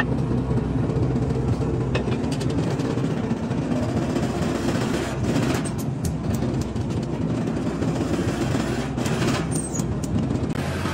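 Hydraulic press running with a steady low machine hum while a leaf-spring leaf is pressed and re-arched, with a few short metal knocks as the leaf is moved on the anvil.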